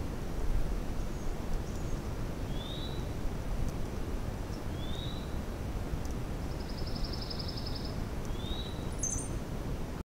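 Songbirds calling: three short rising whistled notes a couple of seconds apart, a quick trill about seven seconds in and a brief high chirp near the end. Steady low background noise runs underneath.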